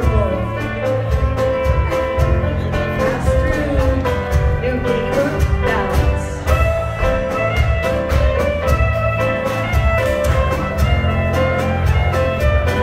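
Live string band playing a contra dance tune, with sustained melody notes over a steady, quick beat.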